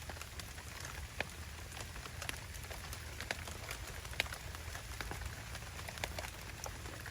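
Heavy rain falling, with many scattered drops ticking sharply close by, over a steady low rumble.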